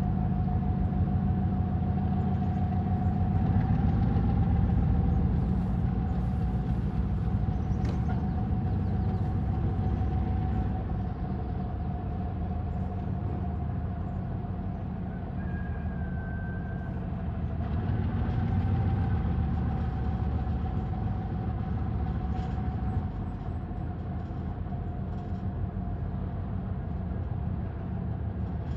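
2TE10V diesel locomotive's 10D100 two-stroke opposed-piston diesel running with a steady deep rumble and a constant whine above it. The engine sound swells twice and eases back, and a brief higher tone sounds about halfway through.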